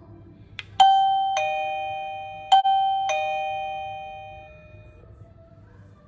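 Secrui M523 plug-in wireless doorbell receiver playing a falling two-note ding-dong chime twice, each note ringing out and fading, set off by presses of the F55 transmitter button. A short click comes just before the first chime. The chime sounding shows that the transmitter is now paired with the receiver.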